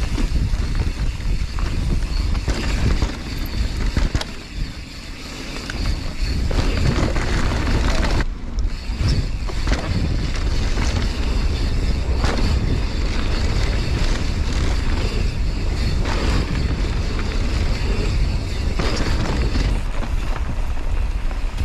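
Wind buffeting a mountain bike's action-camera microphone and knobby tyres rumbling over a dirt trail on a fast descent, with knocks and rattles from the bike over bumps. It eases briefly about four seconds in.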